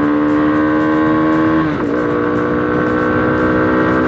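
1979 Honda CT90's small single-cylinder four-stroke engine pulling under way, its pitch slowly climbing. Not quite two seconds in, the revs drop suddenly with a change up a gear, then start climbing again.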